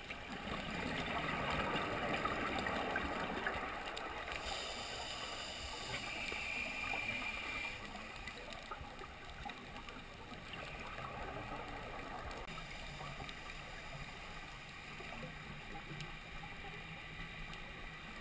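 Underwater sound picked up by a dive camera: a scuba diver breathing through a regulator, with a louder gurgle of exhaled bubbles in the first few seconds, then a hiss carrying a faint high whistle, and a quieter steady underwater hush after that.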